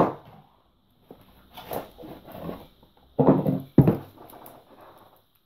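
Handling noises: a sharp knock at the start, scattered faint rustles and clicks, and a louder short noise a little after three seconds that ends in another knock.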